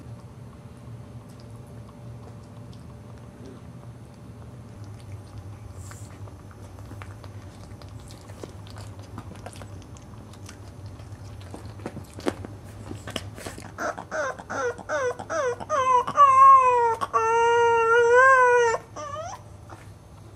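A sleeping boxer dog whimpering: a quick run of short wavering whines that build into one long wavering whine, which stops suddenly.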